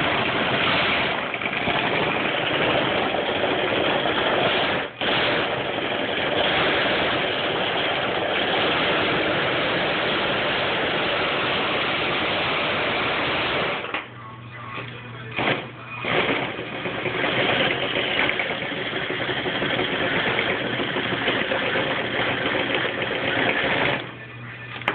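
Electric RC car's motor and tyres spinning the rollers of a homemade wooden dyno, a loud steady whirring. It cuts out for an instant about five seconds in, falls away a little past halfway with a few short spurts, then runs up again and drops off near the end.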